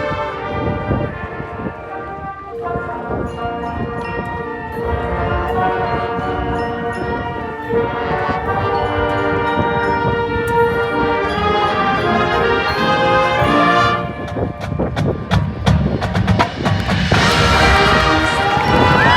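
High school marching band playing: brass holding sustained chords over front-ensemble percussion. About two-thirds of the way through the music turns to many sharp percussion hits and swells louder, and a crowd starts cheering right at the end.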